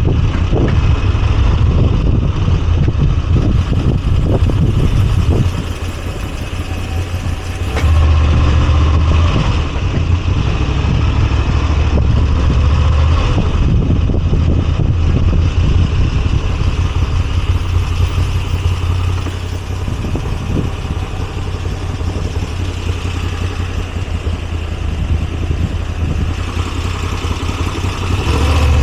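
Moto Guzzi V85TT's air-cooled transverse V-twin engine running as the motorcycle rides along, with road and wind noise. The engine note eases off a few seconds in, picks up again, then settles lower past the middle before rising near the end.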